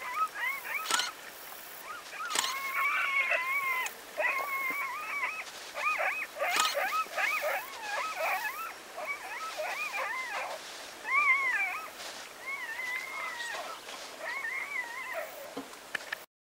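Repeated high-pitched whining calls, one after another with short gaps, each bending up and down in pitch, from an animal at a cheetah kill of a zebra foal.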